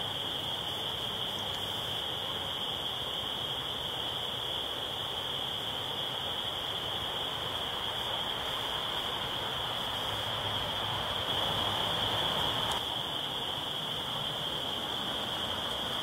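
Dense chorus of spring peepers calling at night, blending into one steady high-pitched ring that swells slightly about two-thirds of the way through.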